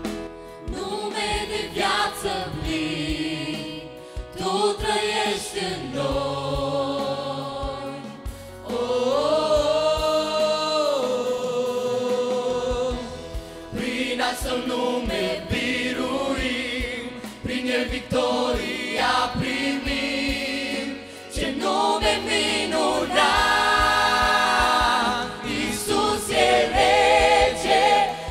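Mixed choir of young men and women singing a gospel worship song in harmony through microphones, with long held notes.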